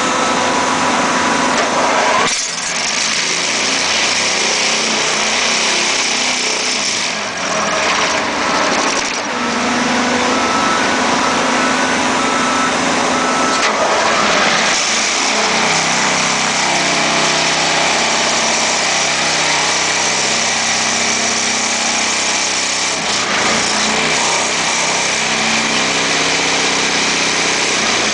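Vibratory pile hammer driving a steel H-pile, with its machinery running: a steady mechanical din, joined about halfway through by a lower, even droning hum.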